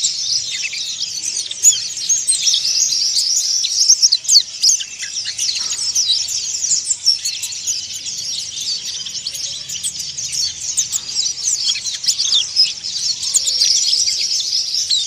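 Mountain white-eye (pleci monty) twittering in a fast, continuous, rough chatter of high chirps with no pauses.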